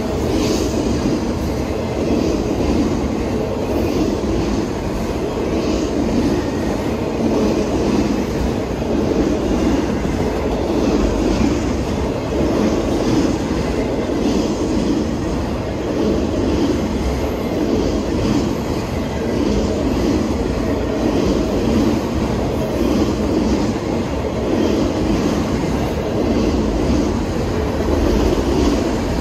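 Empty autorack freight cars rolling past close by: a steady rumble of steel wheels on the rails, with faint clicks recurring as wheels pass over rail joints.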